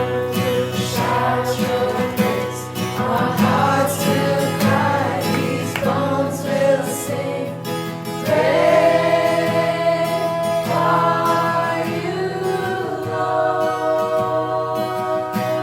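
Group of voices singing a worship song with acoustic guitar accompaniment and a steady bass.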